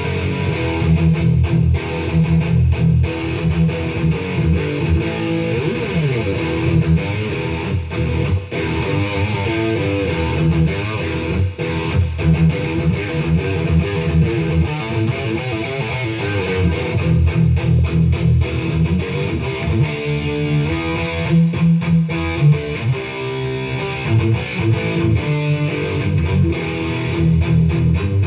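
Ibanez RG350EX electric guitar on its bridge humbucker, played through a Roland Blues Cube BC-60 amplifier's built-in distortion: continuous riffs and chords.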